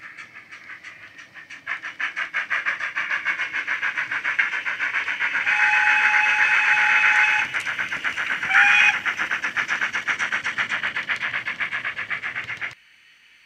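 DCC sound decoder in a Hornby GWR 52XX 2-8-0 tank engine model, playing through a small speaker: the steam exhaust chuffs in an even beat that grows louder and quicker as the engine gets under way. The whistle sounds once long and then once briefly a second later, and the sound cuts off suddenly near the end.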